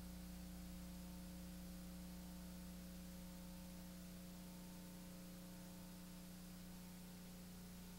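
Faint steady electrical mains hum with light hiss, and nothing else: the blank end of a tape recording.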